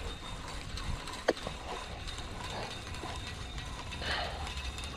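Spinning reel being cranked, its gears whirring steadily as line is wound back in, with one sharp click about a second in.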